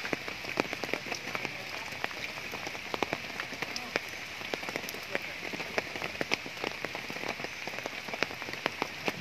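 Steady rain falling, with many individual drops striking close by as irregular sharp ticks over the even hiss.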